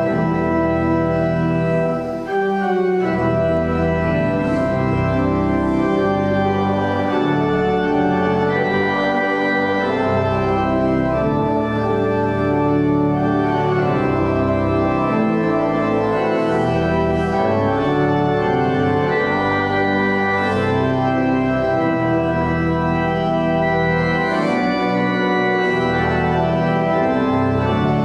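Church organ playing slow, held chords that change every second or so, with a brief break about two seconds in.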